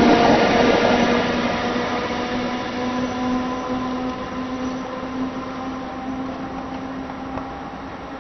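A tram moving away, its running noise fading steadily, with a steady hum that goes on throughout.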